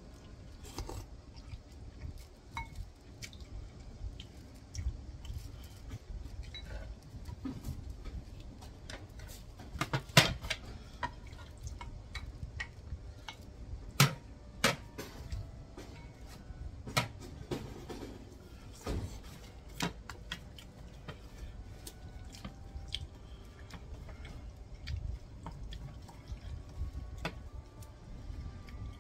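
Spoon clicking and scraping against bowls during eating, with wet mouth sounds of eating in between. The sharpest clinks come about 10 and 14 seconds in.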